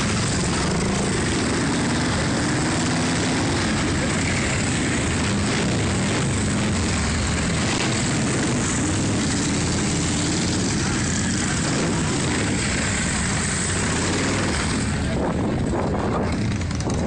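Several cruiser motorcycles, Harley-Davidson style, running at low speed as they roll past one after another, their engines making a dense, steady rumble. The rumble thins out near the end.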